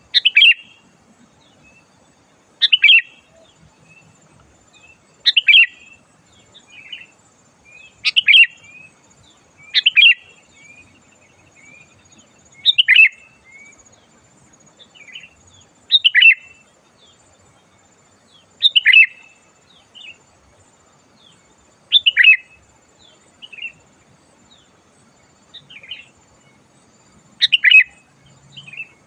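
Sooty-headed bulbul (kutilang) singing: short, loud, bubbly phrases repeated about every two to three seconds, with softer single notes between them.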